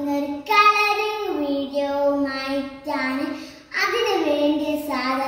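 A young girl singing unaccompanied, holding long notes and gliding between pitches.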